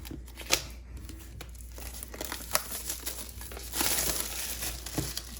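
Plastic wrap being peeled off a product box and crumpled: scattered crinkles and snaps, with a longer tearing rustle about four seconds in.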